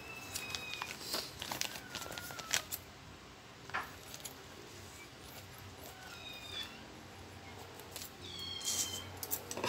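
Scissors snipping open a thin plastic parts bag, with short clicks of the blades and crinkling of the plastic as it is handled.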